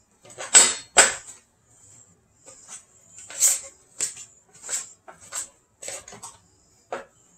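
A mixing utensil scraping and knocking against a glass mixing bowl while stirring bread dough, in about a dozen irregular strokes, the two loudest about half a second and a second in.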